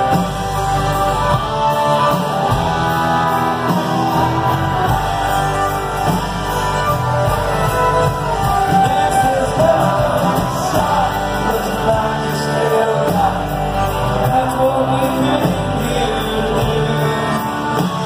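Country-rock band playing live with a lead vocal: acoustic and electric guitars, electric bass, drums, keyboard and fiddle, heard from the audience in a large hall.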